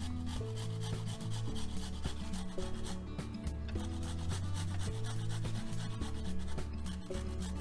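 Fresh ginger root rasped against a flat stainless-steel hand grater in quick repeated strokes, over soft background music.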